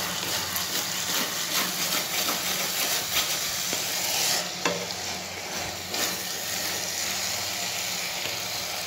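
Wooden spatula stirring and scraping sugar-coated rice around a kadhai, the sugar syrup sizzling as it cooks dry over a medium flame. One sharper knock of the spatula on the pan about halfway through.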